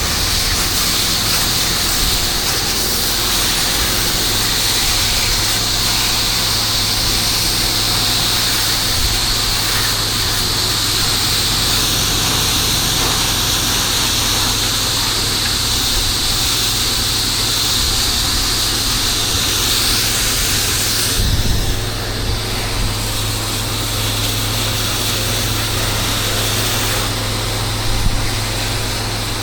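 A pressure washer's engine runs steadily while its high-pressure spray hisses. About two-thirds of the way through the spray stops and the engine keeps running.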